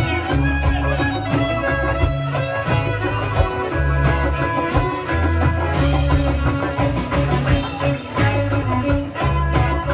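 Band music: plucked strings and fiddle over a steady bass and drum beat.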